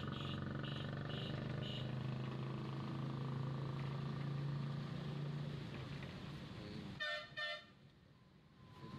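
City road traffic heard from a moving vehicle: a steady engine drone, with a run of quick beeps that fades out in the first two seconds. About seven seconds in come two short horn toots, then the sound drops away briefly.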